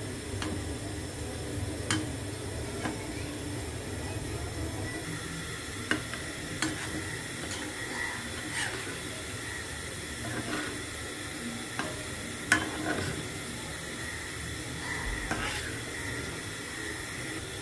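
Kalojam (milk-powder dough balls) sizzling steadily in hot oil in a black karai. A metal spatula scrapes and clicks against the pan now and then as the balls are turned, with the sharpest click about twelve seconds in.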